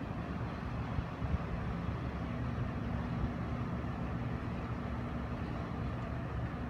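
Low, steady engine rumble of a passing container ship heard across the water, with a steady hum that joins in about two seconds in.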